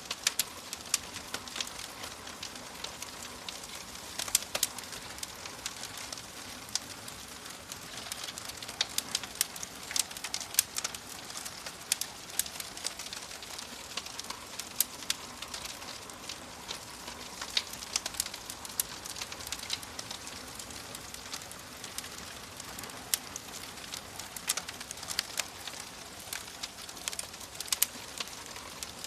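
Wood fire crackling and popping: irregular sharp snaps over a steady hiss of burning.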